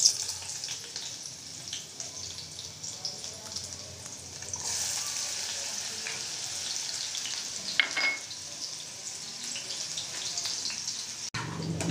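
Chopped garlic, ginger and green chilli frying in hot oil in an aluminium frying pan for a tadka: a steady sizzle that grows a little louder about four and a half seconds in, with one brief knock near eight seconds.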